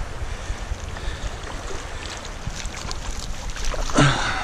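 Wind buffeting the microphone over small waves lapping in shallow water. About four seconds in, a cast net is pulled splashing out of the water.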